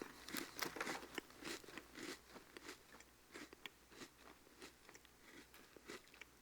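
Faint, irregular crunching clicks, a few a second, thinning out toward the end.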